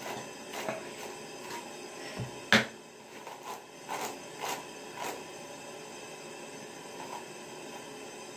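Hairbrush strokes through long hair: a series of short, soft brushing swishes at an irregular pace, with one sharp knock about two and a half seconds in.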